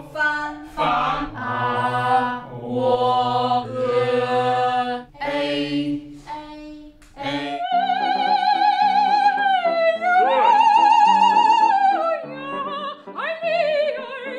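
Voices singing short, separate sung phrases. Then, about halfway through, a solo operatic soprano sings sustained high notes with wide vibrato.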